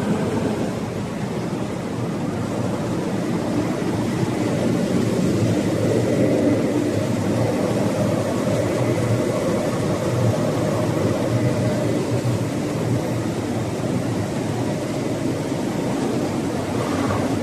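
Battery recycling plant machinery running: a steady, dense mechanical din with a faint high whine through the middle.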